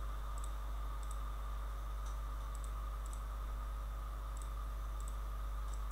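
Computer mouse clicking now and then, often in quick pairs, as lines are picked on screen, over a steady low electrical hum and faint hiss.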